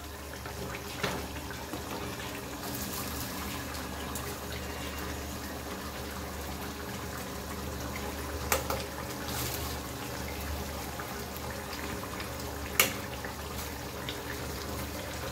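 Chicken curry gravy bubbling and simmering in a pan while it is stirred with a wooden spatula. There are three sharp knocks of the spatula against the pan, the loudest near the end.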